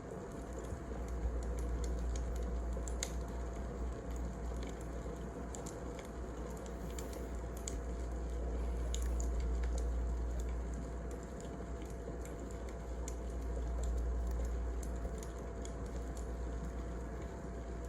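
Wood fire burning, crackling with scattered sharp pops and snaps over a steady low rumble.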